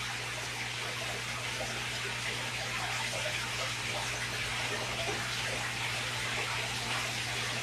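Aquarium filter circulating water: a steady hiss of running water with a low, steady hum underneath.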